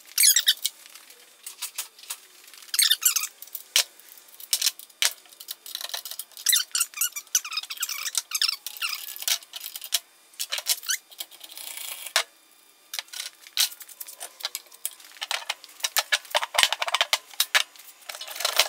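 Hand ratchet clicking in quick runs with pauses between, as the bolts holding the transmission to the engine are backed out.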